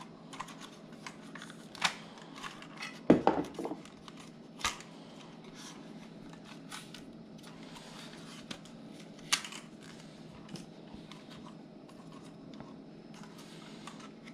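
Plastic clicks and snaps of a DJI Mavic Mini drone being handled as its folding arms are swung open, with light handling rustle between them. A handful of separate clicks, the loudest a quick cluster about three seconds in.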